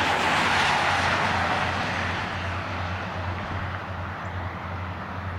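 Distant EMD diesel locomotives running with a steady low drone. A loud rushing noise peaks in the first second and fades over the next two.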